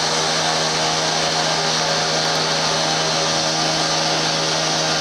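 Steady machine drone, like a motor or fan running without change: a constant hum under an even hiss.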